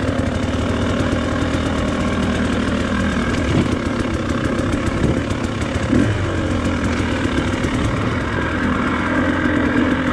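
Dirt bike engine running at low revs on light throttle while riding down a steep, rocky trail. It rises briefly a few times around the middle.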